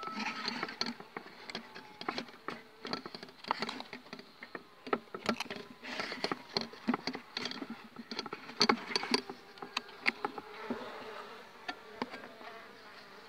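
Honeybees buzzing close to the microphone at a mating nucleus hive, a steady hum broken by frequent short sharp clicks and taps.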